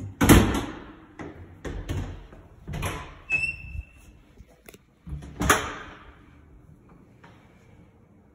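Closet doors being opened and shut: a run of knocks and bangs, the loudest right at the start and another about five and a half seconds in, with a short squeak near the middle.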